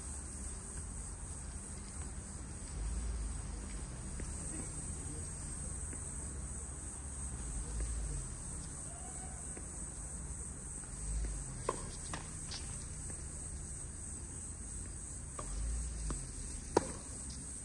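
Crickets chirring steadily in a high, even drone, with bursts of low rumble coming and going. A few sharp knocks sound about twelve seconds in, and a louder one comes near the end.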